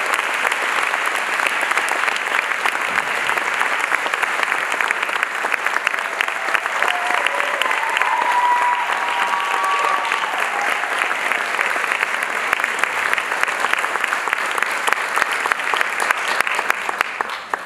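Audience applauding: dense, steady clapping that cuts off suddenly at the very end.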